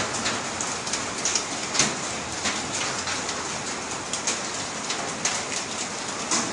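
Rain of mud, sand and small stones falling from a volcanic eruption: a steady hiss of falling grit with many irregular sharp ticks as pieces hit.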